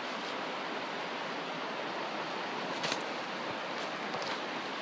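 Shallow stream running over stones: a steady rush of flowing water, with a brief crackle about three seconds in.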